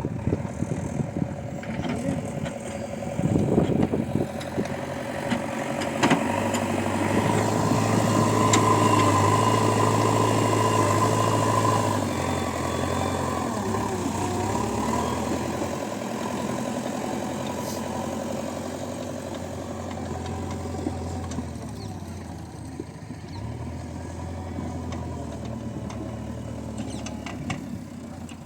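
Heavy diesel engine of earthmoving machinery running, revving up about six seconds in and holding high for several seconds before settling back to a lower, steady run. A couple of sharp knocks come early on.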